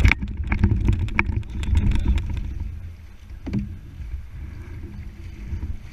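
Nucanoe kayak hull being pushed off a gravel bank into the river: a low grinding scrape over stones with a quick run of sharp knocks in the first two seconds, then quieter, with one more knock about three and a half seconds in.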